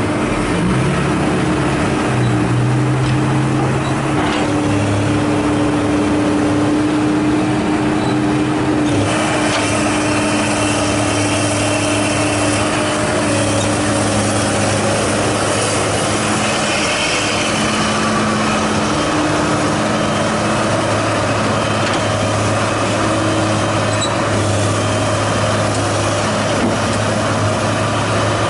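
A dump truck's diesel engine runs. About nine seconds in, the sound cuts to a Komatsu excavator's diesel engine running steadily.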